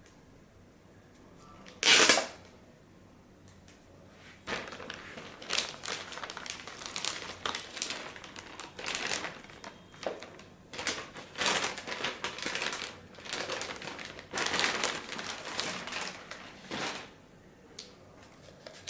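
Packaging crinkling and rustling in irregular bursts as a car stereo head unit is unwrapped, with one loud rustle or knock about two seconds in.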